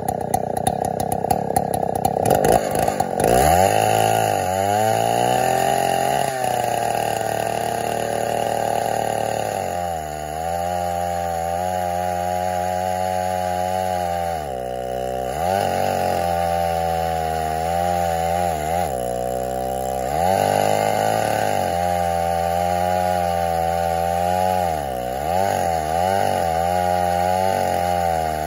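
Chainsaw in an Alaskan mill running at high revs as it rips a slab off an oak stump. It is uneven for the first few seconds, then holds a steady high pitch that dips and recovers several times.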